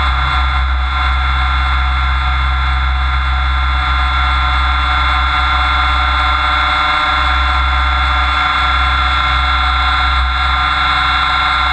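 Mikado Logo 600SX electric RC helicopter in flight, heard from a camera bolted to its frame: a steady, many-toned whine from the motor and drive gears over a strong low hum from the rotor.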